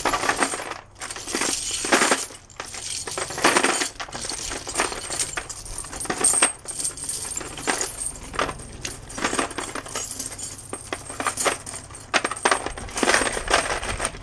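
Steel truck tire chains clinking and rattling as they are lowered, link by link, into a plastic bucket, with many irregular clanks of chain against chain and bucket.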